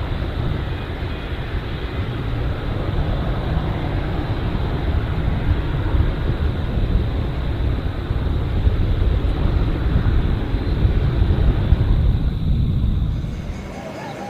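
Boeing 777-300ER's twin GE90 turbofans at takeoff thrust: a loud, steady, deep rumble through the takeoff roll and rotation. It falls away abruptly near the end.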